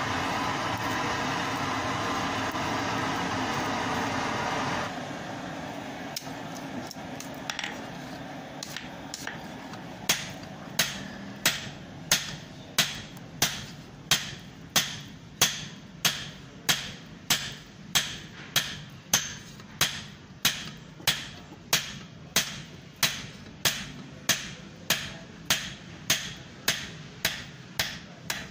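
A coal forge being blown hard, a steady rushing noise, for about the first five seconds. Then, from about ten seconds in, a hand hammer forging a red-hot iron blade on an anvil: steady blows about one and a half a second, each ringing briefly.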